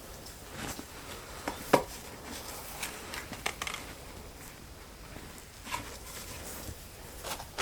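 Scattered light knocks, taps and rustles of someone moving about and handling things, with one sharper knock a little under two seconds in.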